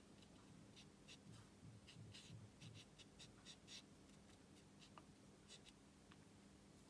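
Faint scratching of a watercolour brush dabbing and stroking paint onto paper in short, irregular strokes, over a faint steady hum.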